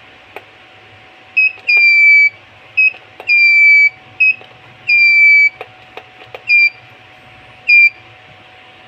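Arduino Morse code buzzer sounding a string of high beeps, short dots and longer dashes (dot, dash, dot, dash, dot, dash, then two dots), the longer ones sliding slightly down in pitch. Sharp clicks of the push button being pressed come in among the beeps.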